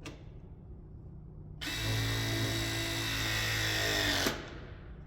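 Ridgid battery-powered ProPress tool crimping a copper ProPress coupling: its motor starts abruptly, runs for about two and a half seconds with the pitch sagging a little as the jaws squeeze the fitting, then stops sharply when the press cycle completes.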